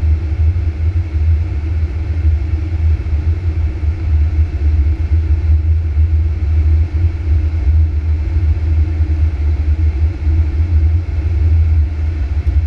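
Steady low rumble of airflow and engine noise inside a Boeing 737-800's flight deck on final approach, with a faint steady high tone above it.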